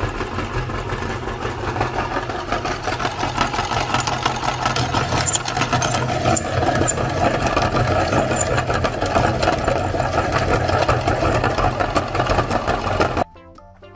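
Electric meat grinder running steadily, its auger crushing sticks of chalk, with a scatter of crackles and clicks over the motor hum. It cuts off suddenly near the end.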